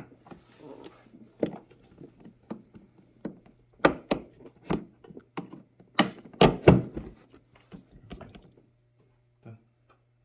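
Irregular series of knocks and clicks from a ride-on toy car's seat being pressed and levered into its fittings with a screwdriver. The loudest knocks come about six to seven seconds in, and the knocking stops about two seconds before the end apart from one last tap.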